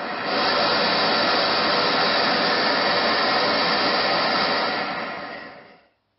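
Homemade butane-fuelled tin-can ramjet with a single butane nozzle running: a steady, loud rushing of the flame jet that dies away about six seconds in as the flame goes out.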